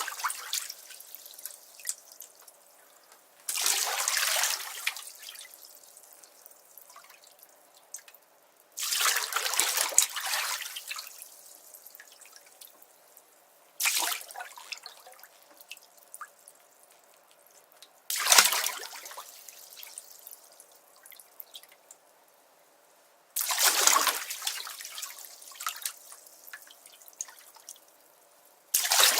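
Bathtub water splashing in short surges about every five seconds, each dying away into trickles and drips.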